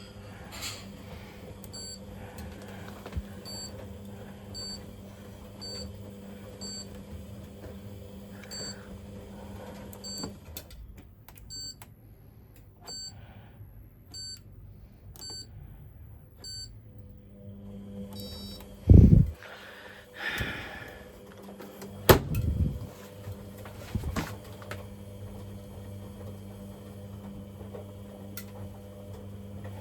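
Hoover 300 Lite tumble dryer running with a steady motor hum. The hum stops about ten seconds in, leaving faint regular ticks, then starts up again about eighteen seconds in, with several loud knocks and thumps just after it restarts.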